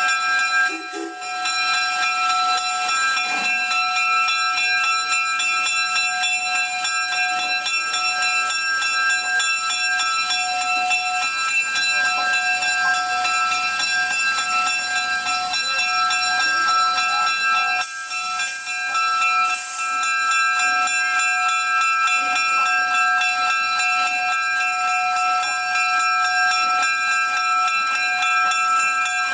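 2-8-0 Consolidation steam locomotive standing under steam, hissing steadily with a steady whine over the hiss. A louder rush of steam about eighteen seconds in lasts a couple of seconds.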